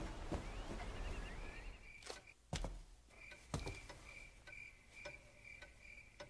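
Quiet room tone with a few soft knocks, then a faint high chirp repeating about three times a second.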